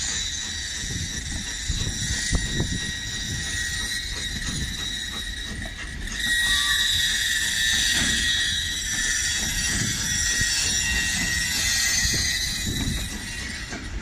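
Goods wagons rolling slowly over curved, jointed track: wheel flanges squeal in a steady high whine that grows louder about six seconds in, over a low rumble with scattered knocks from the wheels.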